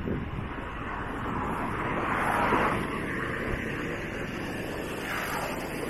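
Road traffic: vehicles driving by on the road, with one passing closer and swelling up then fading about two to three seconds in.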